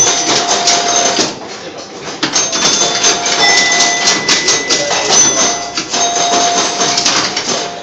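1964 Gottlieb Bowling Queen electro-mechanical pinball machine in play: rapid mechanical clicking and clacking from its relays, bumpers and flippers, with ringing chime tones sounding on and off. The clatter eases off briefly in the second second.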